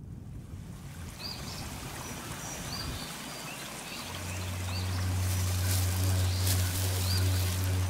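Outdoor evening ambience: short chirping bird calls repeating over a steady hiss. A low steady drone comes in suddenly about four seconds in, with light rustling on top near the end.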